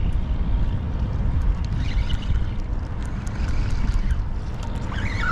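Wind buffeting the microphone and water lapping against a kayak's hull, a steady low rumble, with scattered faint clicks.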